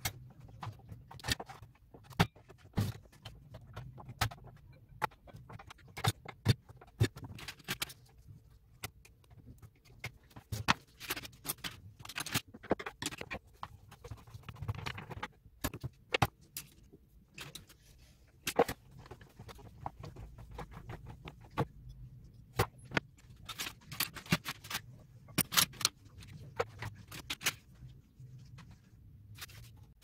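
Irregular clicks, taps and knocks of a screwdriver and hands working on the plastic casing of an electric fan heater, unscrewing and handling it, with small clusters of quick clicks.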